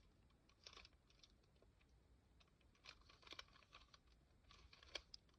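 Faint clicking of a 3x3 Rubik's cube's layers being turned, in short quick bursts of a few turns each.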